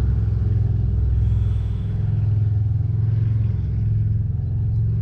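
A steady, loud low rumble with no pause or change.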